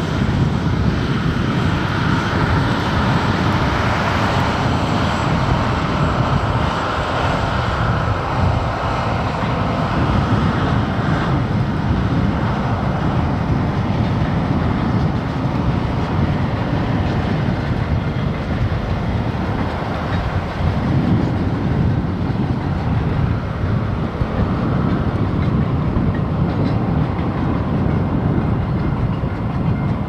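A long diesel-hauled freight train of container wagons passing at speed: a steady rumble of locomotive engines and rolling wagons with wheels clattering over rail joints.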